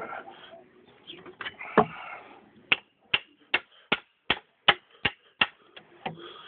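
A run of about nine sharp, evenly spaced knocks, roughly two or three a second, after a few scattered clicks and handling noises.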